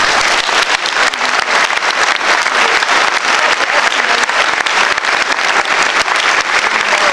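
Audience applauding: many hands clapping together at a steady level. The applause starts right after a line of the speech and does not let up.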